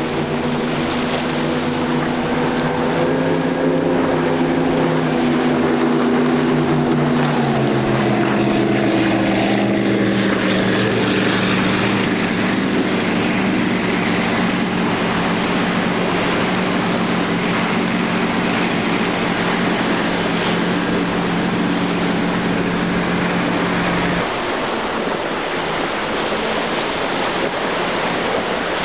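Motorboat engine running over the wash of waves; its note steps down in pitch about a quarter of the way in, holds steady, then drops out near the end, leaving only the sound of surf.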